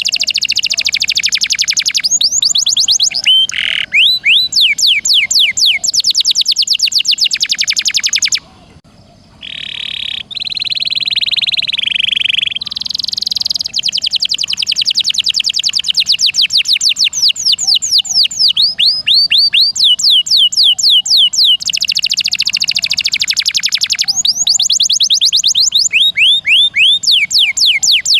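Canary singing a fast, continuous song of rapid rolling trills, each a quick run of repeated high notes sliding downward. About a third of the way through it breaks off briefly, gives a few held buzzy notes, then goes back into the trills.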